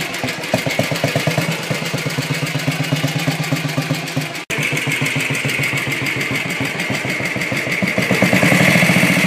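Junak M10's single-cylinder four-stroke engine idling, each firing pulse distinct, growing louder about eight seconds in. There is a brief break about halfway through.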